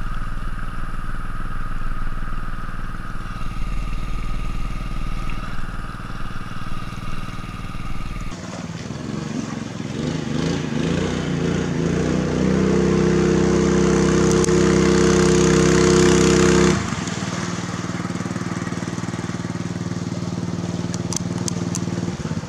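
Small gasoline outboard motor running steadily as it pushes a small boat along. Past the middle it grows louder for about four seconds, then drops back to its earlier steady note.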